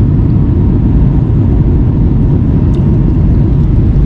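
Steady loud rumble of an Airbus A321neo heard from inside the passenger cabin in flight, engine and airflow noise with a faint steady hum above it.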